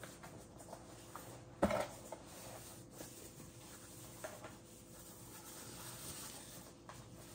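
Faint handling sounds of a small transparent keyboard: light rubbing and small clicks, with one sharper click about a second and a half in.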